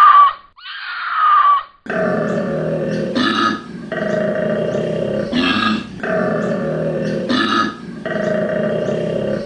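Male koala bellowing its mating call: a deep, rasping, snore-like drone broken every two seconds or so by a short belching grunt, four times over. It is preceded by two short falling cries in the first second and a half.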